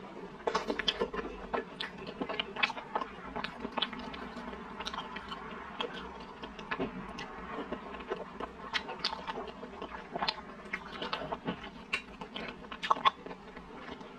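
A person chewing a mouthful of soft steamed bun, with many irregular mouth clicks and smacks.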